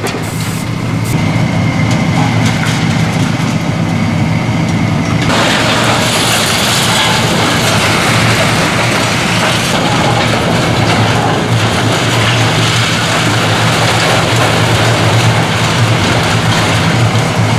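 High-reach demolition excavator's diesel engine running steadily under load, with concrete and metal debris crashing and scraping as the arm tears into the structure; the debris noise grows much louder about five seconds in.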